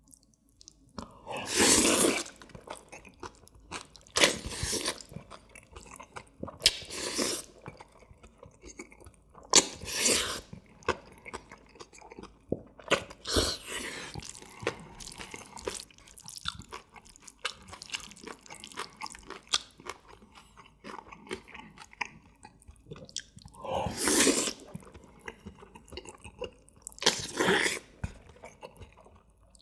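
Close-miked person eating jjajangmyeon, black-bean-sauce noodles: several loud slurps of the noodles, each about a second long, with wet chewing in between.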